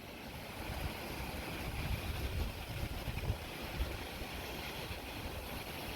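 Wind buffeting an outdoor microphone: an uneven low rumble that swells and eases, with a faint steady hiss above it.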